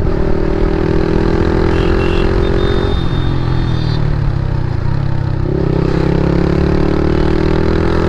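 Motorcycle with an Akrapovic aftermarket exhaust riding at speed, its exhaust note steady and loud. The note drops away about three seconds in and picks up again a couple of seconds later.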